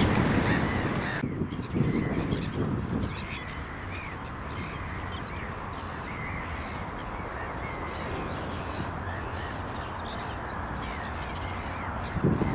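Gulls calling overhead: a quick run of harsh, evenly repeated calls that stops abruptly about a second in. Then fainter scattered bird chirps over a steady outdoor hiss, with a few low thumps near the end.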